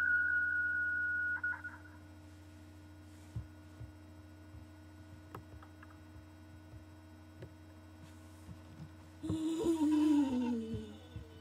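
Audio from a FaceTime call looping between an iPhone, iPad and Mac in the same room: a steady high whine that cuts off about a second and a half in, then a low hum with faint clicks. Near the end a wavering pitched sound slides down for about two seconds.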